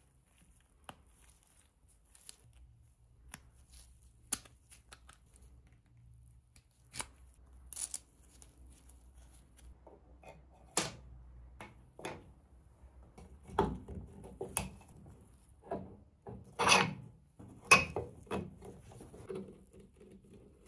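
Handling noise from 3D-printed ABS plastic clutch parts and small metal hardware being fitted together: scattered clicks and taps of plastic on plastic and metal. They get busier about two-thirds of the way through, with a few louder knocks.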